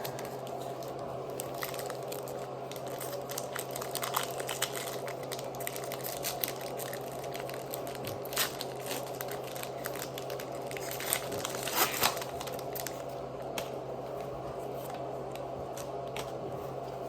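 Foil booster-pack wrappers crinkling and tearing as trading-card packs are opened and the cards handled: a scatter of small irregular crackles, the loudest cluster about twelve seconds in, over a steady low hum.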